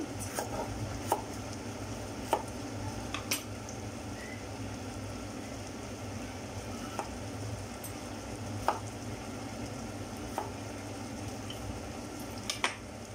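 Knife knocking against a wooden chopping board as a long eggplant is cut, an irregular knock every one to two seconds, over the steady hiss of a steaming pot on the hob.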